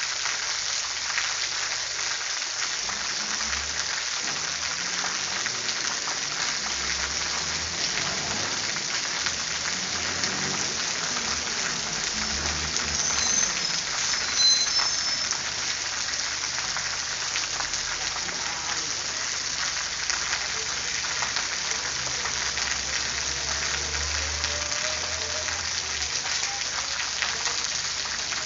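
Steady rain falling: an even hiss full of small drop ticks, with a slight swell about halfway through.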